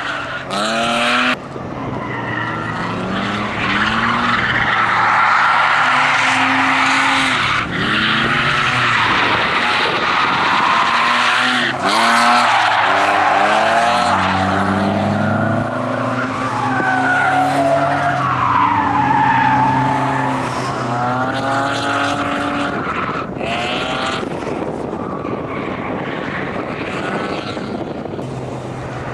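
BMW E36 coupe's engine revving up and falling back again and again through the corners, with tyres squealing as the car slides. The sound breaks off sharply a few times where the footage is cut.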